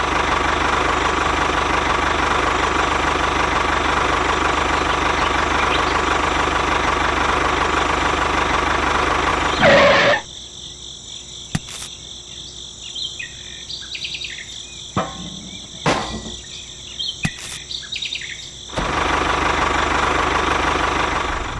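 Small electric motor of a toy tractor running steadily, stopping about halfway through and starting again near the end, with a few light clicks while it is stopped. Birds chirp in the background.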